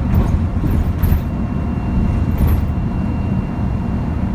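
A single-decker diesel bus's engine running under way, a steady low rumble, with a thin steady turbocharger whine coming in about a second in. Short high hissy sounds come near the start and about two and a half seconds in.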